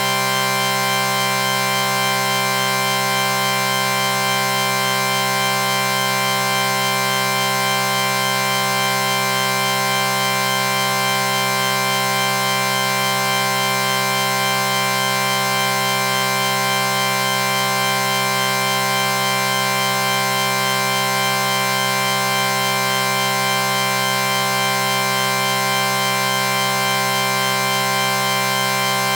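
A chord sound effect: several steady tones sounding together, held without any change in pitch or loudness.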